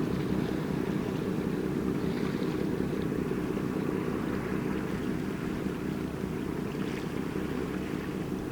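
Low, steady mechanical drone with an engine-like hum, fading slowly.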